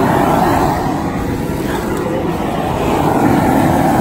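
Outdoor propane burner running at full flame under a large aluminium crawfish boil pot, giving a loud, steady rushing noise.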